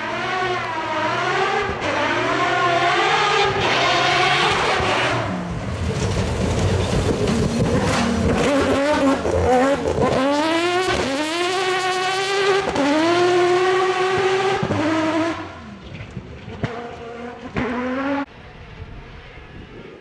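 Fouquet Mazda rally car engine revving hard, its note climbing and dropping with each quick upshift as it passes at full throttle. It fades away about three-quarters of the way through.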